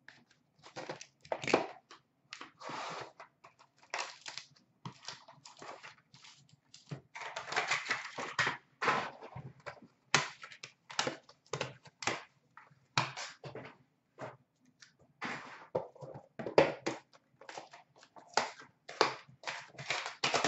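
Trading-card boxes and packs being handled and opened: irregular clicks, taps and knocks of cardboard, with short rustles of packaging.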